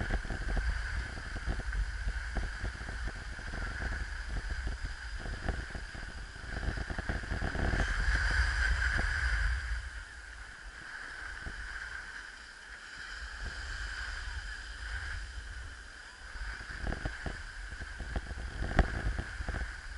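A steady rush of sliding over packed snow, with short scrapes and wind rumbling on a moving action camera's microphone. It is loudest just before ten seconds in and quieter after that.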